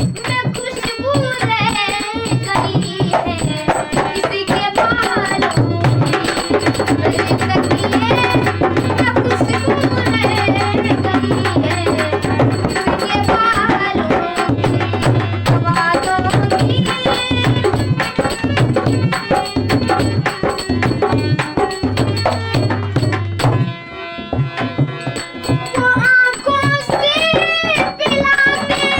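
Hindi ghazal song music: a mostly instrumental passage with a steady hand-drum rhythm under a melody line. A bending melodic line, possibly the voice returning, comes back near the end.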